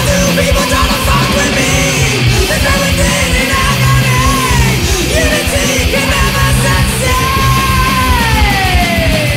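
Loud punk/metal band recording with distorted electric guitar, bass and drums. A high lead line slides down in pitch over the last two seconds.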